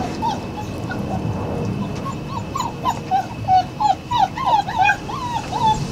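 Litter of 39-day-old White Swiss Shepherd puppies yipping and whimpering in play. The short, high yips come a few at a time at first, then as a quick run of about three or four a second from about two seconds in.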